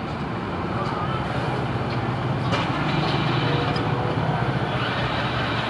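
Steady rumble of road traffic, with a brief sharp click about two and a half seconds in.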